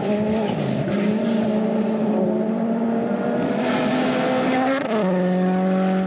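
Toyota GR Yaris Rally1 car's turbocharged four-cylinder engine pulling hard, its pitch climbing slowly through one gear and then dropping sharply at an upshift about five seconds in. A rush of noise builds just before the shift.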